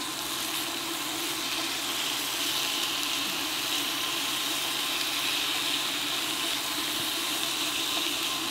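Steady hiss of an electric hot pot and grill combo cooking: broth boiling in the pot and beef sizzling on the grill plate above it.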